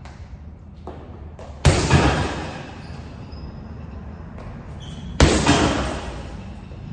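Boxing-glove punches landing on a hanging leather heavy bag: two hard thuds, about a second and a half in and again about five seconds in, each followed closely by a second hit and echoing in the large gym room.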